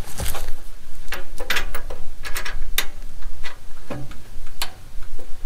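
Irregular clicks and light metallic taps of a hydraulic hose's threaded end fitting being handled and hand-tightened onto its connector.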